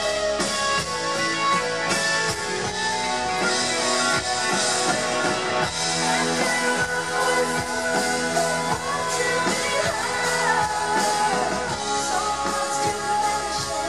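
Live rock band playing a ballad, with electric guitar and drums, and a woman singing in the second half.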